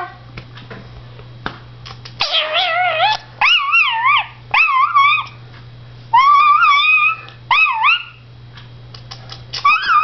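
Blue Indian ringneck parakeet vocalizing in a run of short, high, wavering calls that swoop up and down in pitch, starting about two seconds in and stopping near eight seconds, with another call near the end and a few soft clicks before.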